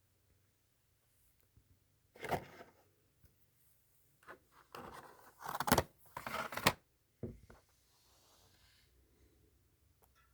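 Several short bursts of rustling and scraping handling noise, with a few sharp clicks, the loudest a cluster about five to seven seconds in.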